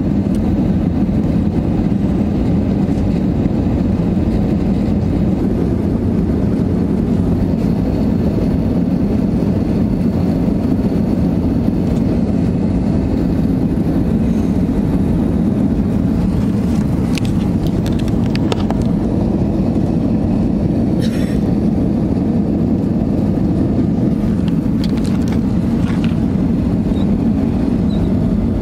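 Airliner cabin noise in flight: a steady low rumble of jet engines and rushing air that does not change, with a few faint clicks past the middle.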